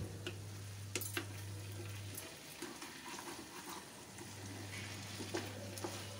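Diced potatoes frying in oil in a kadhai, a faint sizzle, with a few light clicks and scrapes of a spatula stirring them near the start and again near the end. A low steady hum drops out about 2 s in and comes back about 4 s in.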